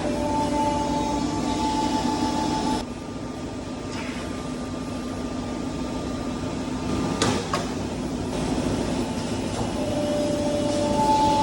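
A 160-ton CNC press brake running: a steady whining tone over a constant hum for the first few seconds, dropping away, then returning near the end. A single sharp clack comes about seven seconds in.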